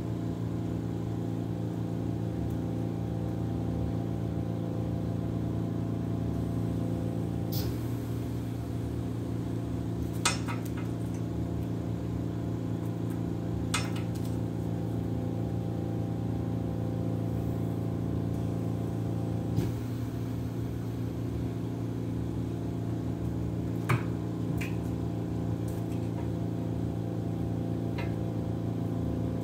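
Steady hum of a home oxygen concentrator's compressor running. About half a dozen sharp clicks and taps are scattered through it.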